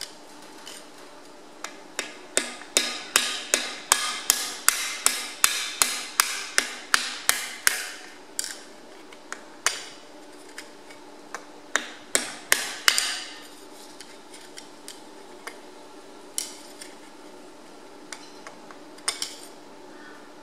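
Hammer blows on a steel drift, knocking a cylinder liner down out of a Perkins AD3.152 diesel engine block; the liner has a weld bead run down its inside to shrink it loose. A steady run of metallic strikes comes at about three a second, then scattered blows, a quick burst of several strikes, and lighter taps near the end.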